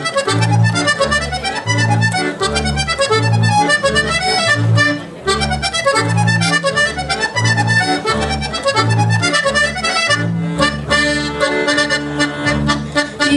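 Accordion and double bass playing an instrumental interlude of an oberek, a Polish folk dance tune: the accordion runs a quick, busy melody over a steady pulse of low bass notes.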